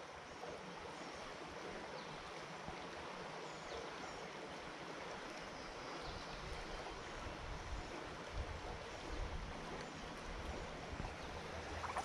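Creek water flowing over its bed, a faint, steady rush.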